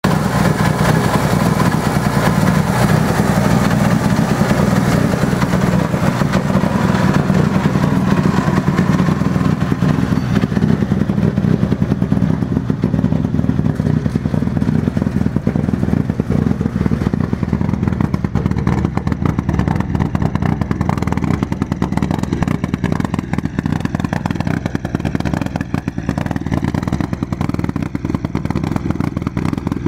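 Mitsubishi Lancer Evolution rally car's turbocharged four-cylinder engine running steadily at idle, a loud, deep exhaust rumble with rapid pulsing. The higher, hissier part of the sound fades about ten seconds in.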